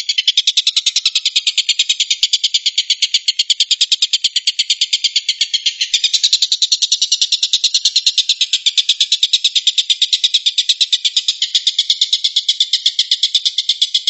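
Oriental dollarbird (tengkek buto) calling loudly: a harsh, rapid chatter of short notes run together into a continuous rattle, the burst call that Indonesian bird-keepers call 'tembakan'. It grows a little stronger about six seconds in.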